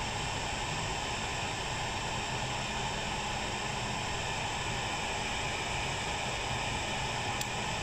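TS-CD2 hot air gun blowing a steady hiss of hot air around the pins of a surface-mount IC, melting the solder so the chip can be lifted off.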